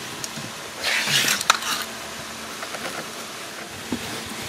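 Rustling and scraping of car carpet being handled and pressed into place, in a short burst about a second in, with a couple of light clicks.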